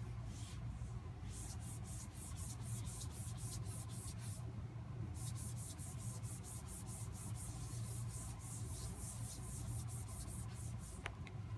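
Cloth rubbing back and forth over a wet-wipe marker menu board, a quick rhythmic scrubbing of about four or five strokes a second, wiping off the reactivated marker residue. The strokes pause briefly around four seconds in and stop near the end, over a steady low hum.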